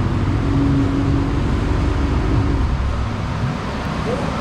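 Loud exhaust of a Dodge Charger Daytona 392's 6.4-litre Hemi V8, with long-tube headers and catless mid pipes, running on a chassis dyno.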